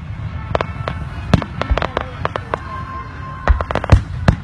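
Aerial fireworks shells bursting one after another: about a dozen sharp bangs at uneven gaps, with a quick run of the loudest ones near the end.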